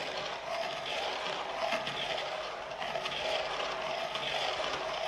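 Planchette sliding across a ouija board under several people's fingertips: a steady scraping hiss.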